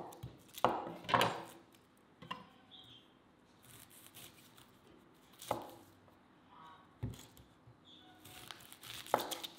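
A large knife trimming and peeling a red onion on a wooden cutting board: about half a dozen separate, irregularly spaced knocks of the blade against the wood.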